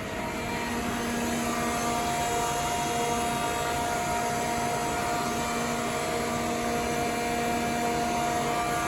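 Mori Seiki ZT2500Y CNC lathe running: a steady whine held over a mechanical hum.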